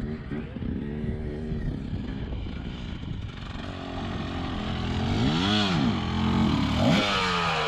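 Off-road vehicle engine running, revving up and back down about five and a half seconds in, then revving again near the end.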